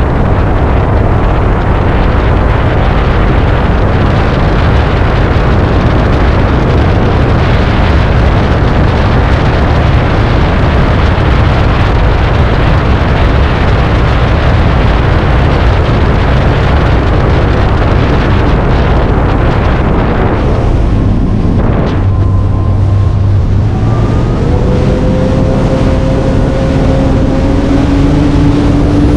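A 20 ft Crownline runabout's engine running flat out, with heavy wind and water rush. Near the end the rush eases and the engine's tone rises steadily in pitch.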